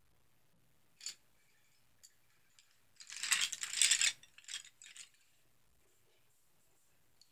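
Rummaging through pens and other small hard objects: a click about a second in, a dense rattling clatter lasting about a second in the middle, then a few more clicks.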